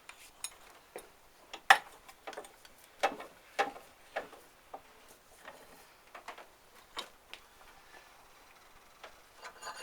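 Irregular metallic clicks, clinks and light knocks as the driveshaft hub is set back into a bench vise and steel parts and tools are handled, the sharpest knock about one and a half seconds in and a small cluster at the very end.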